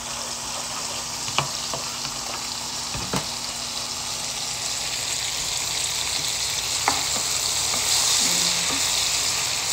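Chopped garlic and halved cherry tomatoes sizzling in hot oil in a frying pan while being stirred with a wooden spatula. The sizzle grows louder in the last few seconds, and three sharp knocks break through it.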